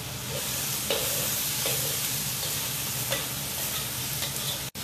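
Squid pieces sizzling in a hot wok while a metal spatula stir-fries them, the spatula scraping and knocking against the wok every second or so.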